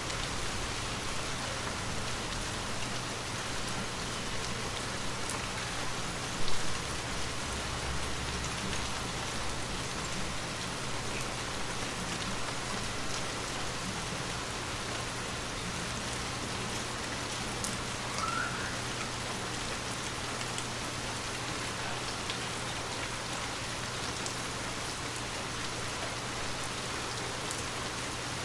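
Steady, light rain falling on a window pane, an even patter with no letup. A single brief low thump stands out about six seconds in.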